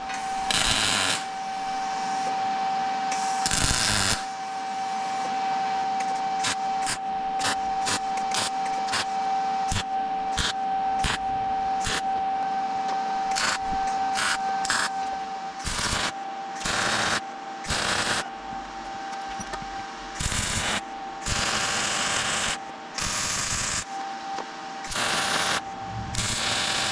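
MIG welder tack-welding steel: a series of short crackling bursts as the corners are tacked, then a few longer crackling bursts of a second or so near the end. A steady high hum runs underneath.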